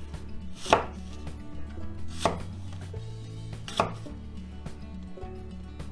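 Knife chopping an apple on a cutting board: three sharp strikes about a second and a half apart.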